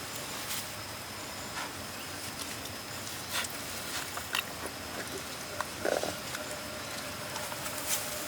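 A puppy whimpers briefly about six seconds in, over a steady hiss with scattered small clicks.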